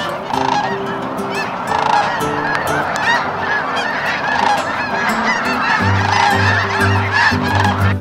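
A large flock of snow geese honking, a dense mass of many overlapping calls as birds lift off the water.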